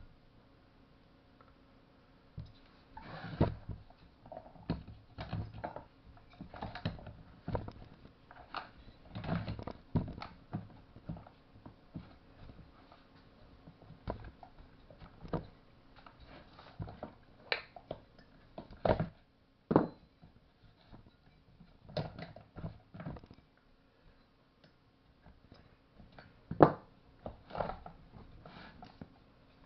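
Irregular clicks and knocks of tools and small metal parts being handled while a Stihl MS-180 chainsaw engine is worked on by hand, with a few louder knocks about two thirds of the way through and near the end.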